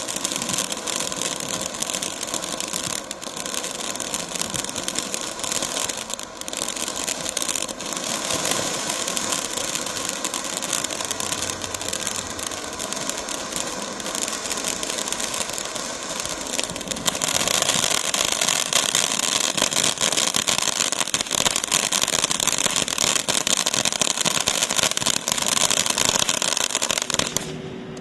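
Black Cat Hot Sauce ground fountain firework spraying sparks: a steady hissing rush with fine crackling. It grows louder a little past the middle and dies away at the very end as the fountain burns out.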